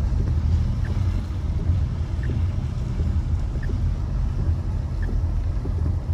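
Steady low road and engine rumble inside a car cabin, driving slowly on a wet street, with faint short ticks about every second and a half.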